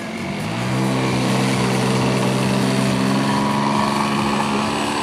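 Model floatplane's engine and propeller opening up to full throttle. The pitch rises over the first second, then holds steady and high through the take-off run on the water.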